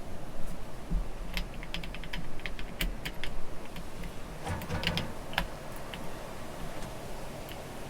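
Hand tools clicking and clinking on metal while the starter bolts are worked loose on an ATV engine, with irregular light clicks and a couple of quick runs of clicks.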